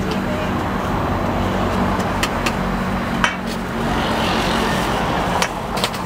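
A metal spoon clinking and scraping against a stainless steel mixing bowl as a salad is tossed, a handful of sharp clinks, over a steady rumble of passing road traffic.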